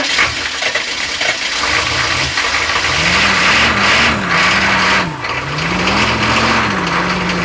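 Diesel truck engine catching on a hard cold start after a long crank, running roughly and then revved up twice, the pitch rising and falling each time. The cold start is struggling because the glow plugs won't stay lit and the block heater had only an hour to warm the engine.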